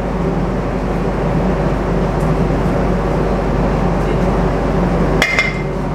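Steady commercial-kitchen hum, with a metal utensil clinking twice against a steel tray about five seconds in, leaving a brief ring.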